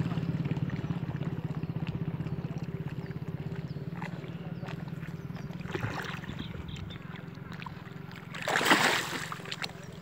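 A steady engine drone that slowly grows fainter, with a hooked rohu splashing at the water's surface about eight seconds in.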